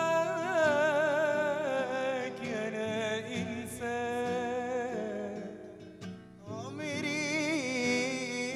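A man's voice singing an Arabic love song, holding long, wavering drawn-out notes, with acoustic guitar accompaniment. The singing drops away briefly about six seconds in, then picks up again.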